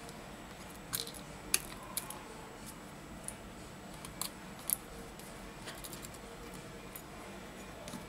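Metal tweezers clicking and tapping against a smartphone's internal parts while the battery is being disconnected: a handful of small sharp clicks, spaced irregularly, the loudest about a second and a half in and just before five seconds.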